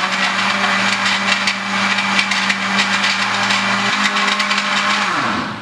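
Countertop blender motor running at a steady speed, churning hot coffee with butter and coconut oil into a froth. Near the end the motor is switched off and winds down with a falling hum.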